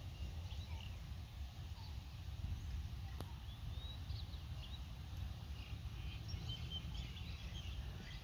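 Outdoor ambience: steady wind rumble on the microphone, with birds chirping in short scattered calls and a single faint click about three seconds in.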